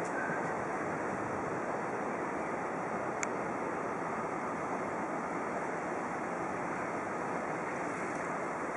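Steady, even rushing noise of outdoor street ambience, with one brief click about three seconds in.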